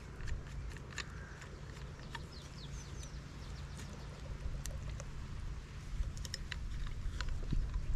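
Scattered crackles and snaps of twigs at a small wood-burning twig stove, over a steady low rumble. A few short falling bird chirps come a little over two seconds in.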